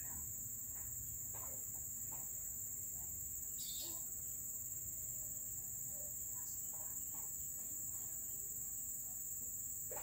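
Steady high-pitched shrilling of insects, such as crickets, running on without a break. Faint short chirps are scattered over it.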